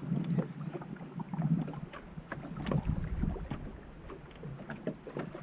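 Small boat drifting at sea, with irregular knocks and water against the hull and wind on the microphone.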